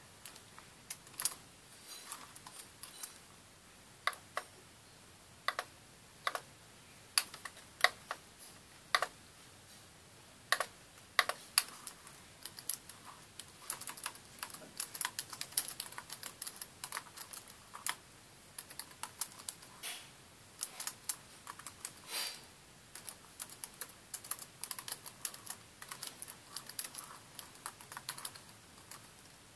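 Typing on a computer keyboard: irregular keystroke clicks, sparse and spaced out at first, then coming in quicker runs.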